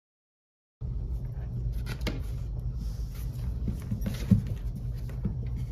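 About a second of silence, then a steady low hum under scattered light taps and knocks: a cat's paws batting a small fabric catnip mouse across a hardwood floor, with one sharper knock about four seconds in.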